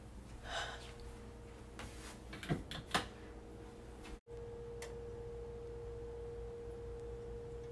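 A faint, steady single-tone electrical hum, with a few short knocks in the first three seconds. The sound cuts out for an instant about four seconds in, then the hum returns a little louder.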